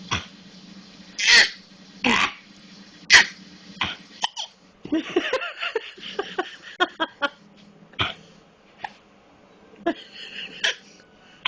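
A fit of harsh coughing: a run of loud single coughs about a second apart, then a longer rasping, voice-like hack lasting about a second and a half, then a few more spaced coughs.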